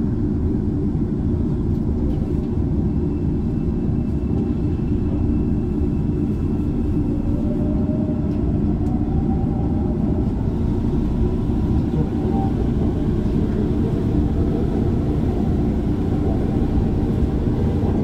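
Shinbundang Line subway train pulling away from a station into the tunnel, heard from inside the train: a steady low rumble of wheels and running gear, with a motor whine that rises in pitch from about seven seconds in as the train gathers speed.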